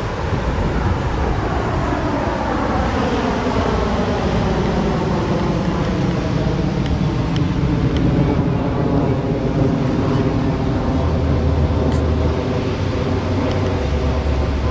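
Lockheed T-33 Shooting Star's single Allison J33 turbojet heard from the ground as the jet flies its display: a loud, steady jet rush with a whine that falls in pitch over the first several seconds, then holds level.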